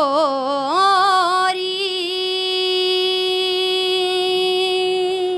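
A young woman singing a Haryanvi raagni unaccompanied. She ornaments the word "chhori" with wavering turns, then holds one long steady note that stops near the end.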